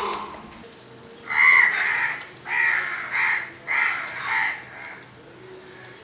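House crows cawing: one call right at the start, then a run of about six harsh caws in close pairs. These are mobbing calls aimed at a barn owl.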